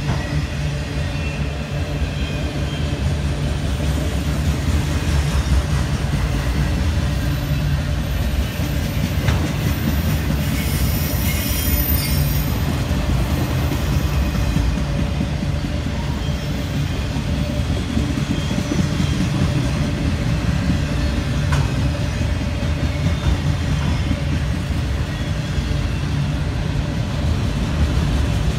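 A train passing close by: railroad cars rolling over the rails in a steady rumble, with a brief high-pitched wheel squeal about eleven seconds in.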